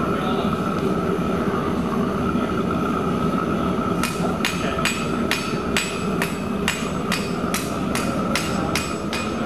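Three-burner propane gas forge burning with a steady rushing noise. From about four seconds in, a hammer strikes metal on an anvil a little over twice a second, each blow ringing.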